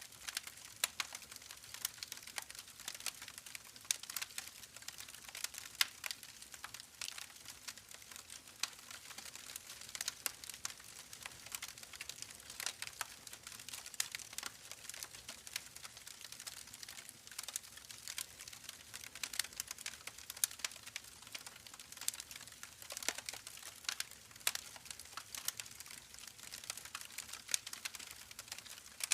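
Campfire crackling: a steady hiss of burning wood with frequent irregular sharp pops and snaps.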